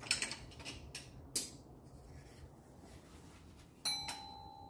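Metal hand tools clinking and rattling a few times, then one sharp metallic clink about four seconds in that rings on with a steady tone.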